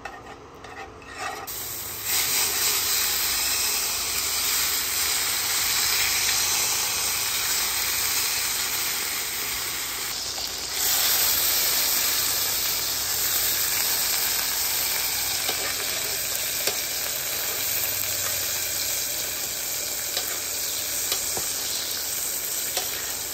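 Smoked beef tallow and a smoked picanha's scored fat cap sizzling in a hot cast iron pan as the fat is seared. After a couple of quiet seconds with a few clicks, the sizzle starts suddenly and holds steady. It dips briefly and comes back a little louder about eleven seconds in.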